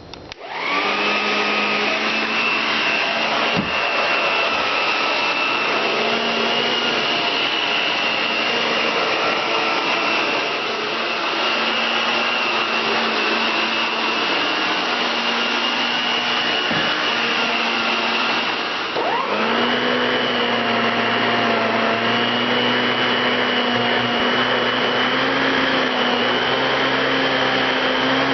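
Electrolux central vacuum switching on with its power nozzle attached: the motor spins up right away into a steady whine with rushing suction. About 19 seconds in a second motor spins up, adding a rising hum that then holds steady.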